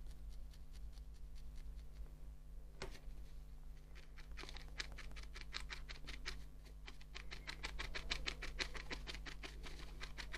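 Felting needle stabbing repeatedly through wool into a foam felting pad: a fast run of soft pokes, several a second, growing louder and denser from about halfway.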